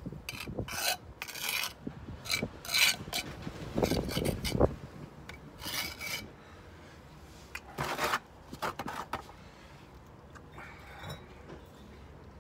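Steel trowel scraping and spreading sand-and-cement mortar, a run of short scraping strokes for about five seconds, then a few more spaced out.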